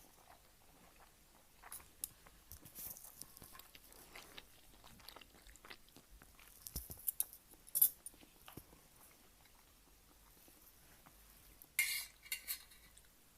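Close-up ramen eating sounds: soft chewing and mouth noises with scattered light clicks of utensils against a dish. A sharper click comes about eight seconds in, and a short cluster of louder clinks comes near the end.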